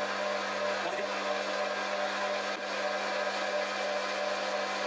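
Foreman TB1835 mini metal lathe running at a steady speed, its motor and spindle turning the chuck with an even hum.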